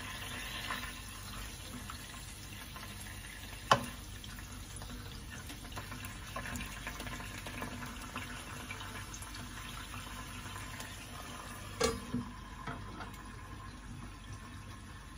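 Small sausages frying in a little oil and water in a pan, a steady sizzling, bubbling hiss. A sharp clack about four seconds in, and a couple of knocks near twelve seconds as the glass lid goes back on the pan.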